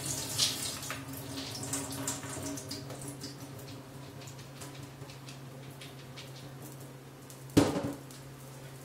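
Water draining from soaked wheat grains in a strainer, trickling and dripping and thinning out over the first few seconds. A single sharp knock comes near the end.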